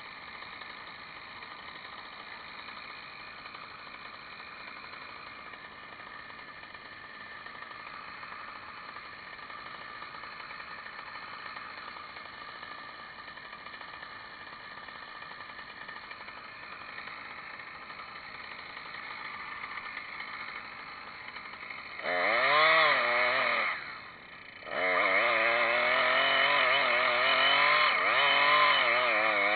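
Chainsaw running at a low steady level, then opened up to full throttle near the end: a short loud rev, a brief dip, then a sustained rev whose pitch rises and falls.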